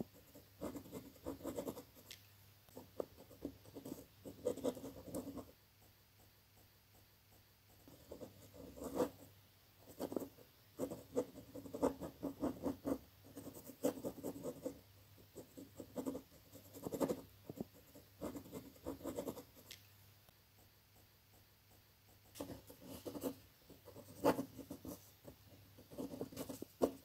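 Pen writing on a sheet of paper: runs of short scratching strokes, broken by two pauses of a couple of seconds, one about a quarter of the way in and one past the middle.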